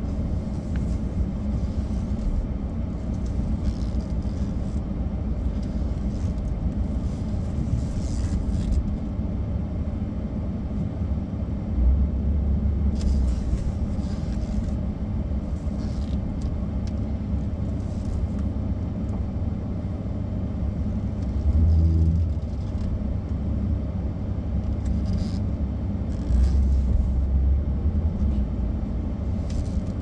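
Truck driving, heard from inside the cab: a steady low engine and road rumble that swells louder briefly a few times.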